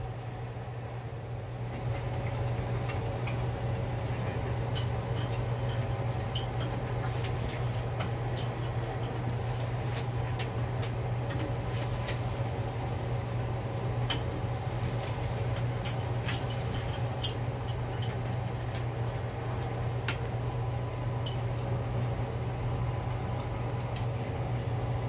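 A machine's steady low hum, with scattered light clicks, taps and flutters of pet macaws moving about their perches and flapping their wings in a steel water bowl as they bathe.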